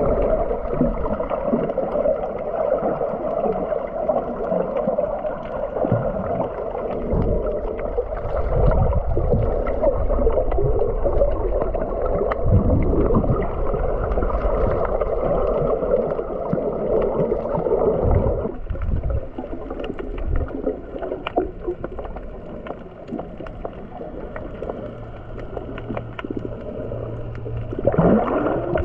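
Muffled underwater noise of water moving and gurgling around a camera held below the surface, with irregular low surges and a steadier hum that drops away about two-thirds of the way through.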